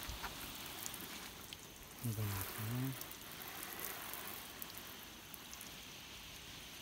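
Rain falling steadily on a car and the wet pavement: an even hiss of drops. About two seconds in there is a short low vocal sound lasting about a second.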